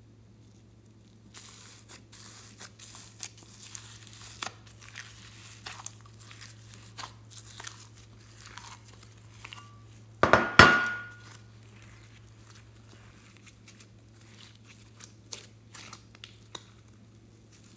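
Glitter-covered slime being pulled and peeled by hand out of a shell-shaped dish: a dense run of crackling and tearing from the glitter crust and stretching slime. About ten seconds in comes one much louder squelch, then softer scattered squishes as the blue glitter slime is kneaded.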